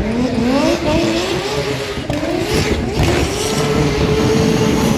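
Corvette drift car drifting on spinning, smoking tyres. Its engine revs climb in several quick rises over the first three seconds, then hold steady at high revs, over the rush of tyre noise.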